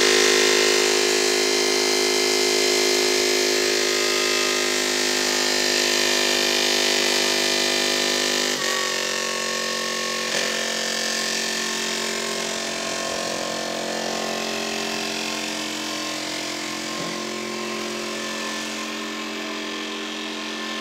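Hydraulic reversing concrete mixer's air-cooled engine running steadily at a constant speed, with two short knocks about eight and a half and ten seconds in. It gradually gets quieter over the second half.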